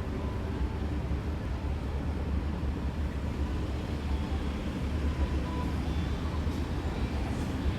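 Steady urban street ambience at night: a constant low rumble like traffic, with faint distant voices.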